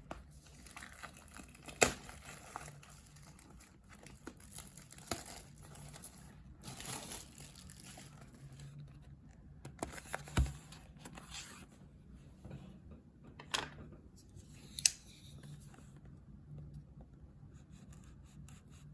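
Plastic shrink wrap being torn open and crinkled off a cardboard trading-card hobby box, with irregular rustling and scattered sharp taps and snaps of the box being handled; the loudest snaps come about two seconds in, about ten seconds in and near fifteen seconds.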